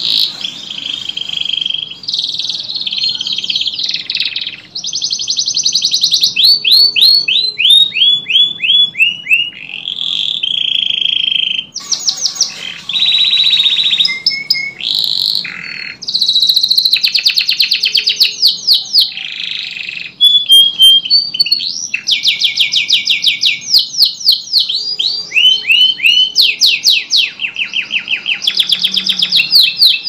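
Domestic canary singing a long continuous song of trills and rolls. Each phrase is a rapid run of repeated notes lasting a second or two before the next begins, and some runs sweep down in pitch.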